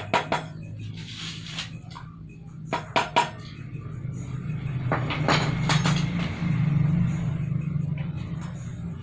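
Hammer tapping a steel punch against a motorcycle rear wheel's sprocket hub, giving sharp metallic strikes: two right at the start, three close together about three seconds in, and a quicker run of taps around five to six seconds in.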